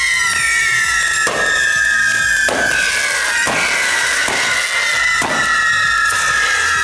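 Mechanical ground fireworks wheel spinning, its driving fountains giving a loud, steady whistling screech that slowly falls in pitch, with about five sharp cracks roughly once a second.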